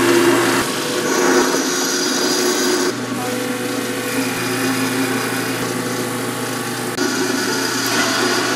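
Benchtop drill press running with a steady motor hum while a Forstner bit bores into a wooden board, with the scraping noise of the cut.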